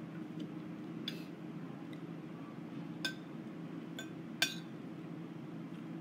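Metal cutlery clinking against a plate during a meal, four sharp clinks, the loudest about four and a half seconds in. A steady low hum runs underneath.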